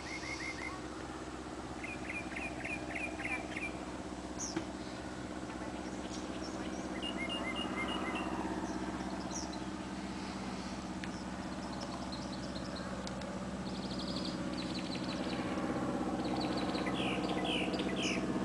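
Small plane's engine droning steadily overhead, growing louder over the last few seconds as it comes closer. Birds chirp in short rapid series throughout.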